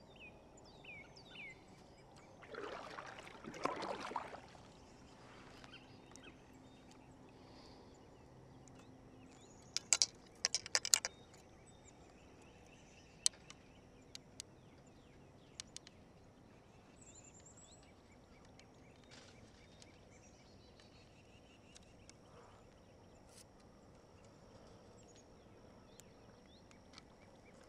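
Quiet lake ambience heard from a kayak: scattered bird chirps and a faint steady high whine, a swish of the kayak paddle in the water about three seconds in, and a cluster of sharp clicks around ten to eleven seconds in.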